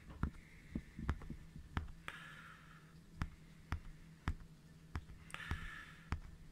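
Steady ticking, about two sharp clicks a second, over a faint low hum, with two brief soft hisses about two and five seconds in.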